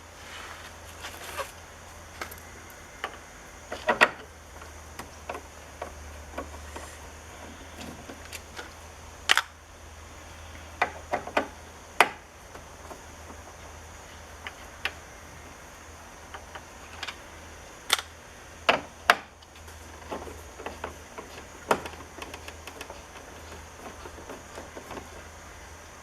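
Irregular sharp clicks and knocks at uneven intervals, a few much louder than the rest, over a steady low hum.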